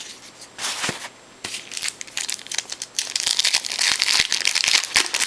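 Foil trading-card pack wrapper crinkling and crackling as it is handled and torn open. It starts with a few scattered crinkles and becomes a dense run of crackling in the second half.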